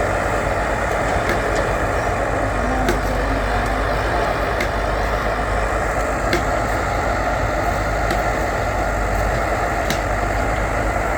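Diesel engine of a backhoe loader running steadily under work, with a few faint clicks or clanks now and then.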